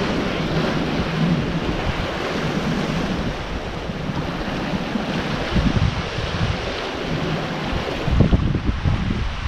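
Sea waves washing and breaking against shoreline rocks, a steady hiss, with gusts of wind rumbling on the microphone about halfway through and again near the end.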